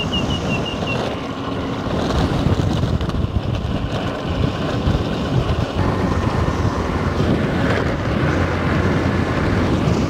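Wind buffeting the microphone over the steady running of a moving vehicle.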